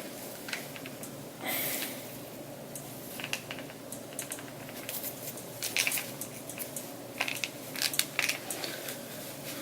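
Rustling and scattered clicks of plush headphones being handled and put on, with a brief rustle just after the start and a run of sharper clicks in the second half.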